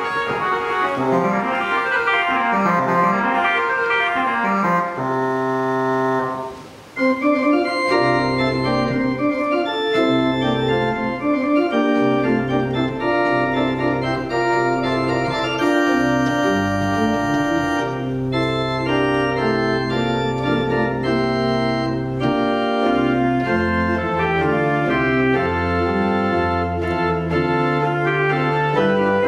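Martin Ott mechanical-action (tracker) pipe organ playing: quick moving notes for the first few seconds, then a held chord that breaks off about six and a half seconds in. After a short gap it comes back with full chords over sustained low pedal notes.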